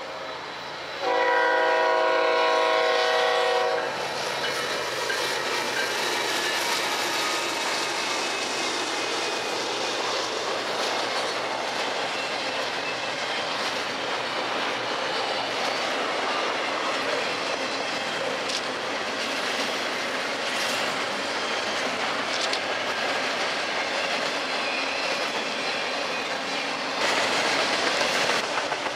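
A freight locomotive's multi-tone air horn sounds one long blast about a second in, the warning for a grade crossing. Then a double-stack intermodal freight train rolls steadily past at close range, with the steady rumble and clickety-clack of its wheels on the rail joints.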